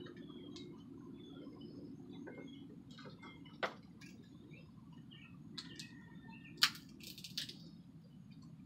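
Small songbirds chirping faintly in short scattered calls over a steady low background hum, with three sharp clicks or taps, the loudest a little past the middle.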